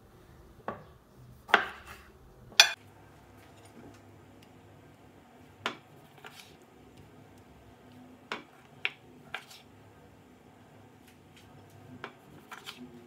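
A string of separate light clinks and knocks of kitchenware, about ten, the loudest near the start, as halved cherry tomatoes are set onto a plate of chopped spinach.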